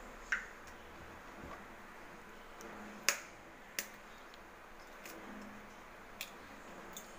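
Knife blade tapping eggshells to crack them open over a glass bowl: four sharp clicks, the loudest about three seconds in, with a few fainter ticks between.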